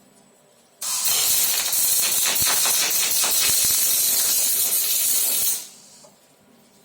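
Welding arc from a Fronius welder on a robot, burning steadily as a hiss thick with crackling for about five seconds. It strikes suddenly about a second in and cuts off near the end, as one weld run.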